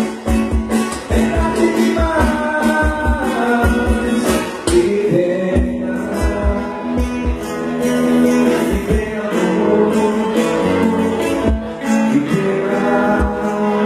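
Live bar-band music: strummed guitar over a steady kick-drum beat, with a singing voice.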